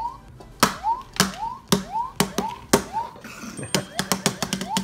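Battery-powered jumping Mario toy switched on and hopping: a short rising electronic jump chirp repeats about twice a second, each with a hard plastic click, and the clicks come faster near the end.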